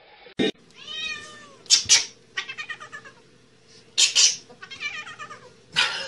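A cat meowing several times, the calls rising and falling in pitch, some short and loud, over a faint steady hum.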